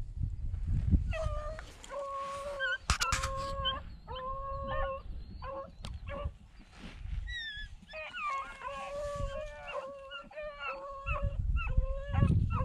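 Beagles baying on a rabbit's track: long drawn-out howls of about a second each, then quicker, overlapping bawls from more than one hound in the second half.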